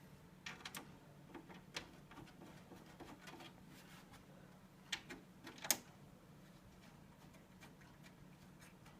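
A few faint clicks and knocks as a desktop PC case's side panel is put back on, the loudest two about five and six seconds in, over a low steady hum.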